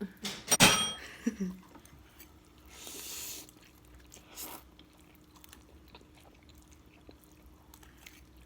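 Two people eating ramen noodles: a sharp ringing clink about half a second in, then slurping and chewing with small clicks of utensils.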